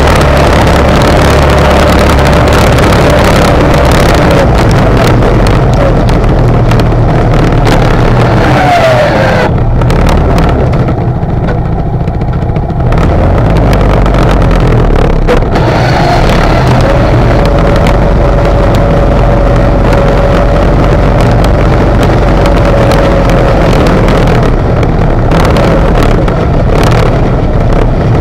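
ATV engine running as it pushes a snow plow blade through snow and slush, easing off for a few seconds around ten seconds in and then pulling again. A thin whine over the engine note glides up and down with the throttle.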